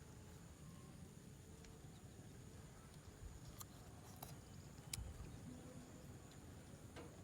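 Near silence: faint background noise with a few faint, scattered clicks.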